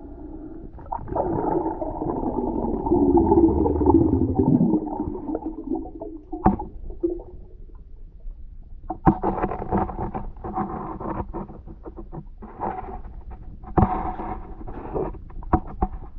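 Muffled underwater sound through a submerged camera: a loud, wavering, gurgling rumble in the first few seconds, then broken bubbling with scattered short knocks.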